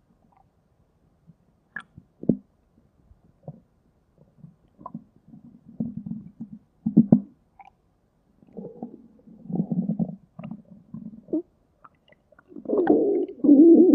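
Stomach rumbling: scattered short gurgles and squelches, growing into a louder, longer growl near the end.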